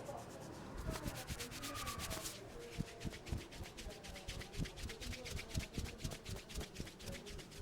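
Hands rubbing briskly over hair and scalp during a head massage. The strokes are fast and scratchy, about ten a second.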